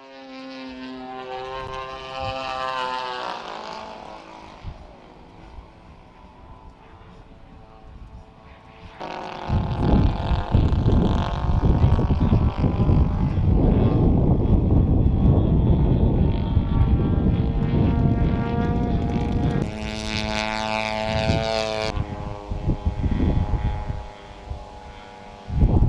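A radio-controlled model airplane's engine and propeller droning as it flies by. For about ten seconds from roughly ten seconds in, heavy wind buffets the microphone with a loud low rumble. The engine drone comes through clearly again a little after that.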